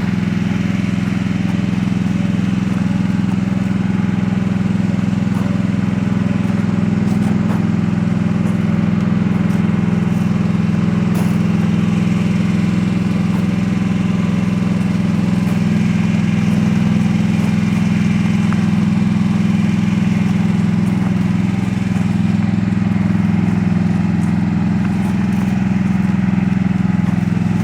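Mini excavator engine running steadily at an even speed.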